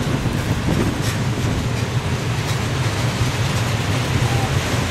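Freight train wagons rolling past on the rails: a steady, low running noise of wheels on track as the end of the train goes by.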